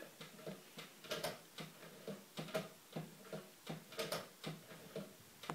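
Light clicking at a Blu-ray player's front as it is worked by hand, about three or four irregular clicks a second.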